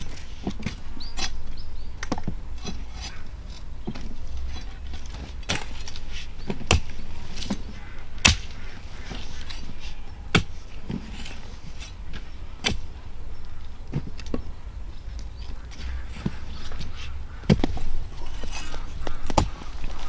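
A hand tool striking hard, again and again at an irregular pace of roughly one blow every one to two seconds, with several of the blows louder than the rest. This is typical of harvest work such as chopping or digging.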